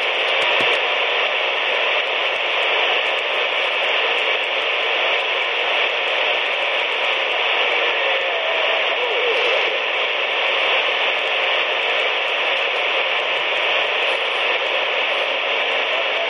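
CB radio tuned to 27.185 MHz (channel 19), its speaker giving out a steady, loud static hiss with no one transmitting.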